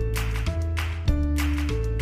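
Background music: sustained pitched notes over a steady bass and beat, changing chord about every half second.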